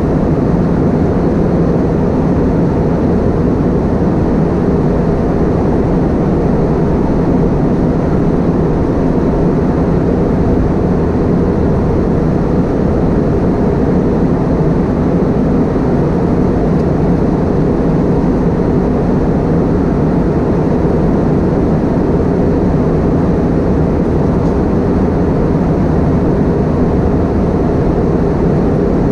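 Inside the cabin of an Airbus A320-232: a steady, loud drone of its IAE V2500 turbofan engines and the airflow, low-pitched, with no change.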